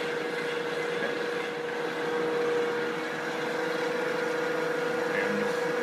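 Metal lathe running steadily: a constant machine hum with one held tone.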